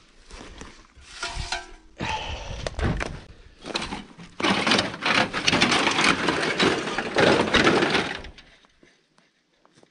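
Rustling with cracks and crunches of dry wood and brush. It starts suddenly about two seconds in, grows louder and denser about four seconds in, and stops abruptly near the end.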